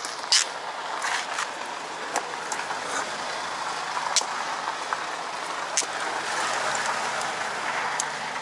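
Steel snow chain links clinking sharply a handful of times as the chain is worked on the van's wheel, over the hiss of road traffic that swells as a car goes by near the end.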